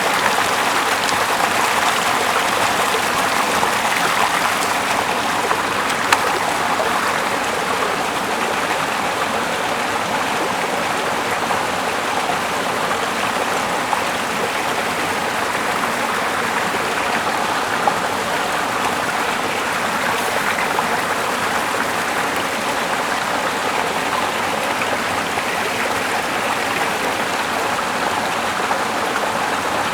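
Steady rushing of running water, even and unbroken, with a few faint clicks.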